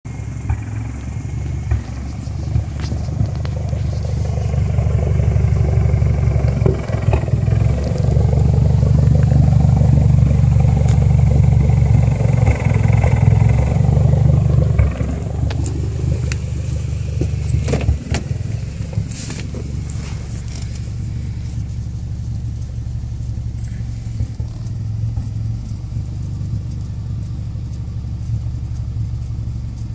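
2008 Mitsubishi Lancer Evolution X's turbocharged 2.0-litre four-cylinder engine idling roughly, the owner's complaint. The idle grows louder for about ten seconds, then drops back to a lower, steadier rumble, with a few sharp clicks.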